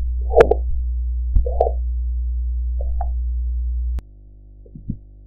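Amplified stethoscope audio from a blood pressure measurement: a steady low hum with short soft thumps, mostly in pairs, about every one and a half seconds. The hum cuts off suddenly with a click about four seconds in, leaving the thumps fainter over a quiet background.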